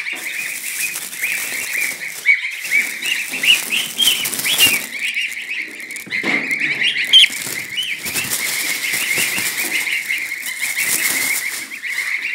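A group of two-week-old goslings peeping without pause, a dense chorus of short high chirps. A few rustles or bumps stand out about two, four and a half and seven seconds in, the last being the loudest moment.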